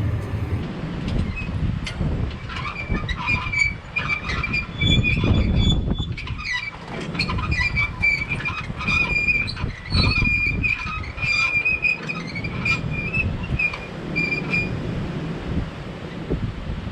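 Tractor running while it backs a trailer, with rattling and clanking from the hitch and trailer and an on-and-off high squeal.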